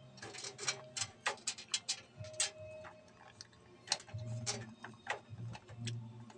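Irregular light clicks and taps of small plastic connector leads being handled and pushed onto a PC motherboard's front-panel header pins.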